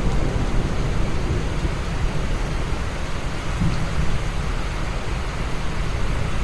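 Steady heavy rain falling, with a deep continuous rumble underneath.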